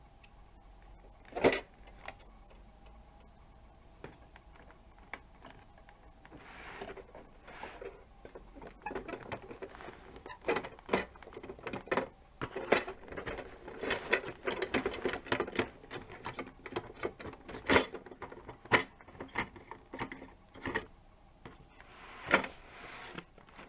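Cardboard toy box with a plastic window being handled and turned over: scattered taps, knocks and rustling, with sharp knocks about a second and a half in, near 18 seconds and near the end, and a busy stretch of crackling and rattling in the middle.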